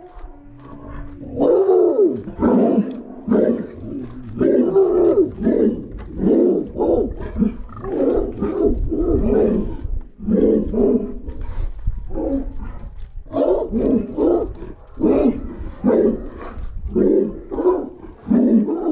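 A pig grunting over and over in a run of short calls, one or two a second, beginning about a second and a half in, with a couple of short pauses.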